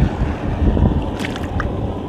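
Wind buffeting the microphone: a gusty low rumble, strongest in the first second, with a few light clicks about a second and a half in.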